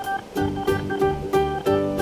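Background music: a bright plucked-string tune, guitar or ukulele, with a steady beat.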